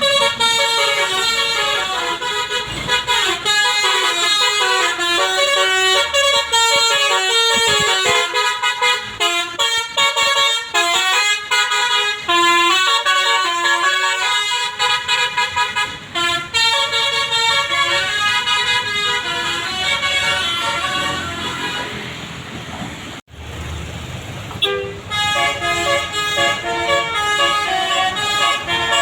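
Bus basuri 'telolet' multi-tone horn playing a fast melody of stepped notes. There is a short break a little over twenty seconds in, then the tune starts up again.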